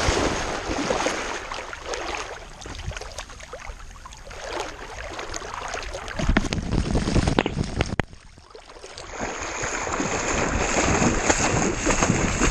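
Water splashing and sloshing around a swimming dog, heard close up from a camera mounted on the dog's head: loud splashing at first, quieter lapping in the middle, a short lull, then heavier splashing again from about nine seconds in.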